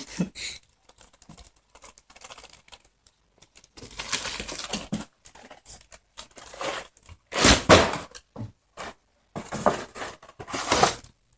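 Packaging being torn open and crinkled by hand, in irregular rustling bursts with a few sharp clicks and short pauses; the loudest burst is a little past halfway.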